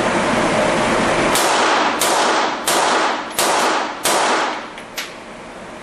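Pistol shots in a timed string: five sharp cracks, each with a short ringing tail and about two-thirds of a second apart, then a fainter shot about a second later.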